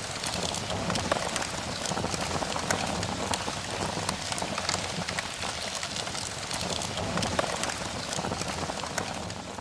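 Heavy rain falling, a steady dense hiss with many individual drops ticking sharply on a nearby surface.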